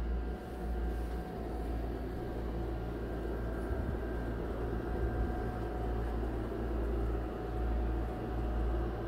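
Steady whir of a through-wall packaged terminal air conditioner (PTAC) running, with a faint steady hum over a low rumble that swells and fades.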